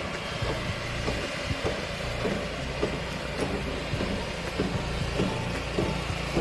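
Engine running steadily with irregular knocking and clattering over it.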